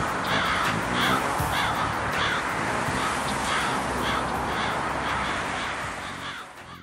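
A large flock of crows cawing overhead, many harsh calls overlapping in a constant chorus. The calls fade away near the end.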